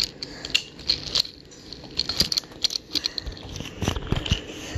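Wooden Brio toy trains and track pieces clacking and knocking as they are pushed along and handled, a few irregular light clicks.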